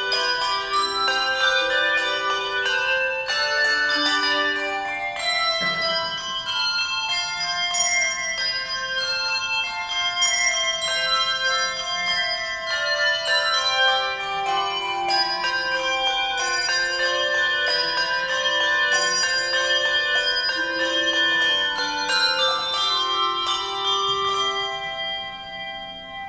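Handbell choir playing a quick run of ringing melody notes over lower bass bells. Near the end the sound dies away as the last notes ring out.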